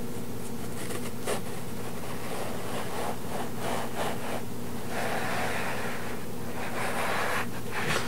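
A knife sawing through a soft roll of sliceable cotton candy, with the hands pressing on the roll: a soft scratchy rubbing that builds from about three seconds in and is densest in the second half. A steady low buzzing hum lies underneath.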